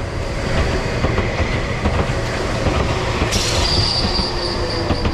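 Enoden electric train passing close by, its wheels rumbling on the rails. About three seconds in, a high, steady squeal sets in.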